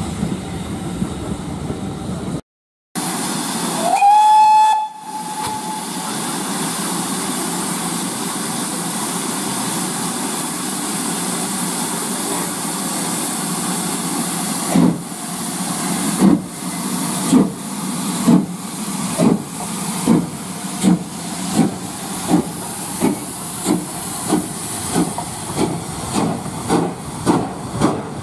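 Coaches rolling along the rails, cut off suddenly; then a steam locomotive's whistle sounds once, rising into a held note for about a second, followed by a steady hiss of steam. About halfway through, the locomotive starts away with exhaust chuffs that gradually quicken as it gathers speed.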